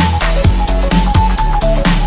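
Electronic background music with a steady, driving beat and a short repeating synth melody.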